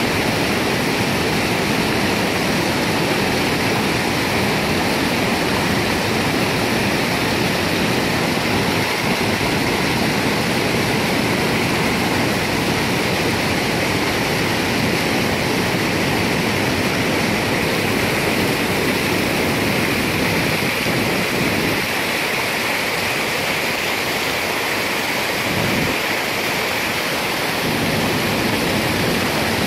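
Floodwater pouring over a stepped concrete dam spillway and churning in the channel below: a steady, loud rush of falling water.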